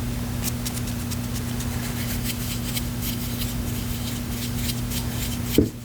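Bare hands rubbing together in quick, repeated strokes over a steady low electrical hum, ending with a single loud thump just before the end.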